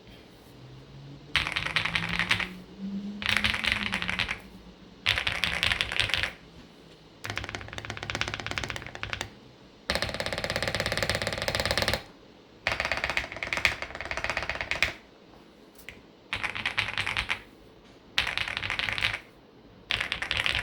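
Typing on a Zuoya GMK87 mechanical keyboard with Krytox 205g0-lubed Leobog V4 linear switches: fast runs of keystrokes in bursts of one to two seconds, with short pauses between them. The longest unbroken run comes about halfway through.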